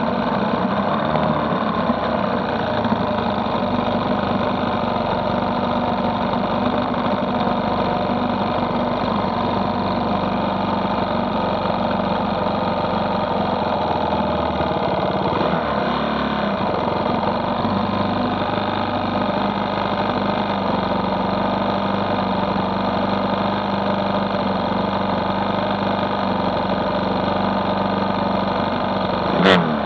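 Engine idling steadily, with a brief loud burst near the end.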